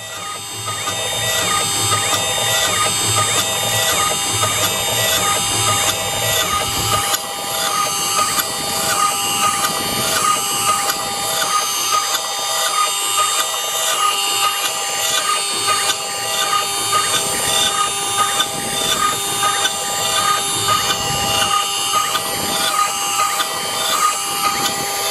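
CNC milling machine's end mill cutting a pocket into a block of ebony wood. A steady spindle whine runs under a cutting noise that rises and falls in an even, repeating rhythm.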